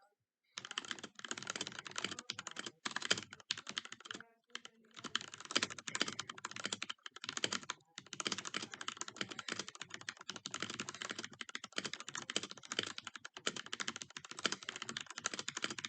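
Typing on a Royal Kludge RK G68 hot-swap mechanical keyboard fitted with Gateron Milky Yellow Pro linear switches and PBT keycaps. The keystrokes come fast and continuously from about half a second in, with two brief pauses.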